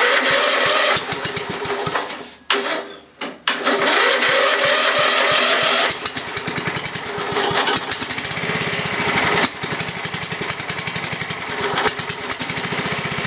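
Electric starter cranking a cold 1982 Briggs & Stratton 11 hp single-cylinder flathead engine on choke: a couple of short cranks, then a long crank from about three seconds in, the engine catching and running unevenly in the second half.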